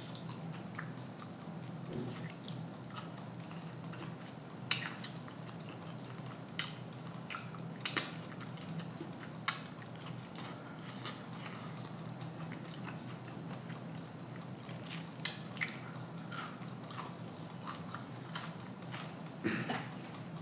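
A person chewing and biting fried food close to the microphone, with a few sharp mouth clicks spread through, over a steady low hum.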